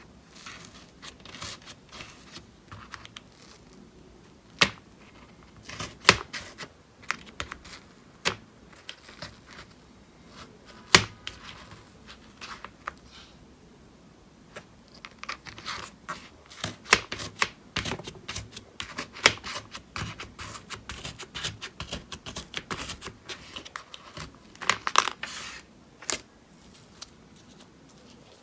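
Slime being handled and squeezed, giving off a run of sharp, irregular clicks and crackling pops. They are sparse at first and come thick and fast in the second half.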